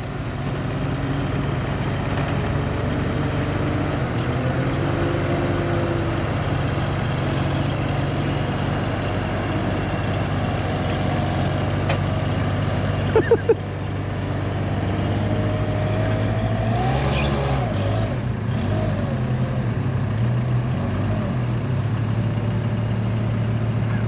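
Vehicle engine running steadily under way, with three short, loud pulses about 13 seconds in and the engine note wavering around 17 seconds.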